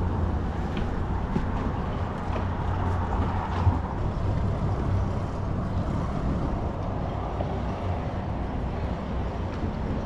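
Steady low engine drone under an even wash of wind noise.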